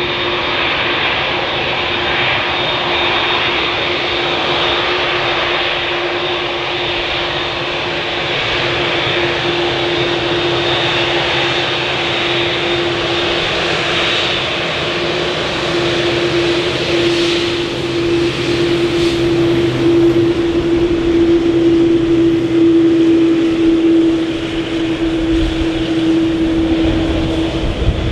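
Jet airliner's engines passing on arrival: a steady whine over a broad rushing hiss that grows louder past the middle, then eases a few seconds before the end.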